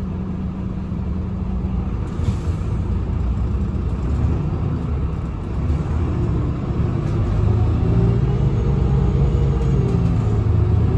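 Irisbus Agora Line city bus heard from inside the cabin, its diesel engine and Voith automatic gearbox running. It idles at first, a short hiss comes about two seconds in, and then the engine note grows louder and rises in pitch as the bus pulls away.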